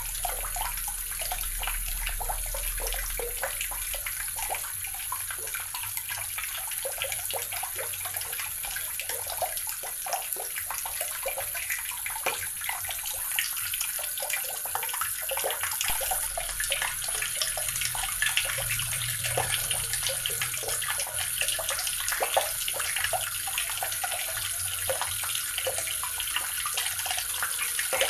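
Water running steadily from a tap, a continuous hissing splash with small spattering ticks.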